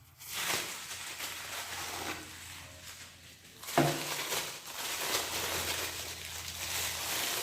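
Packaging rustling and crinkling in the hands as a knife and scissor sharpener is unboxed, in uneven stretches.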